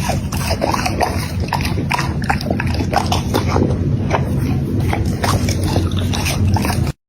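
A dog eating close to the microphone: quick, irregular wet chewing and lip-smacking clicks, several a second, over a steady low rumble.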